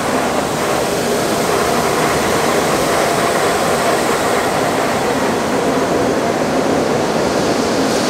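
Shelled corn pouring from a gravity wagon's chute onto the steel grate of a grain dump pit: a steady, loud rushing rattle of kernels.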